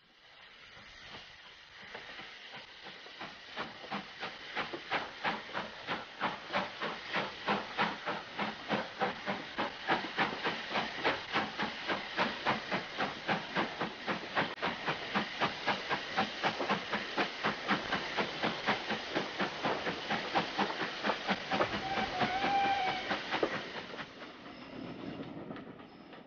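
Southern Railway Q class 0-6-0 steam locomotive No. 541 pulling away with a train. Its exhaust beats grow louder over the first ten seconds and quicken to about three or four a second.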